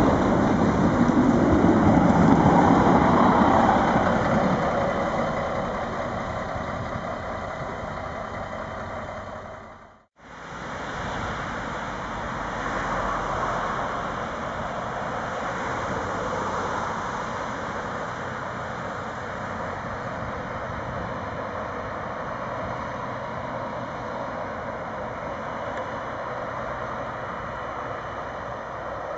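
Two coupled Stadler Regio-Shuttle RS1 diesel railcars running past, their engines and wheels loud at first and fading as the train pulls away. After a sudden cut about ten seconds in, the train is heard steadily from a distance.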